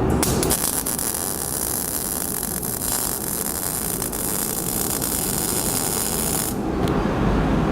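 Electric welding arc crackling and hissing steadily as a preheated cast iron railing collar is welded onto a candle stand; the arc starts just after the beginning and cuts off abruptly about a second before the end.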